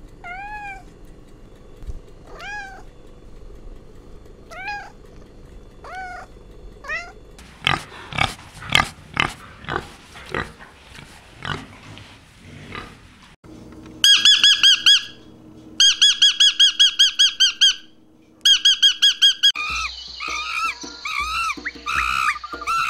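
A tabby cat meowing, short rising-and-falling calls about every two seconds; then pigs grunting as they root in straw. Then the loudest part: fast runs of high squeaking chirps, several runs in a row, followed near the end by macaque monkeys with high calls and chatter.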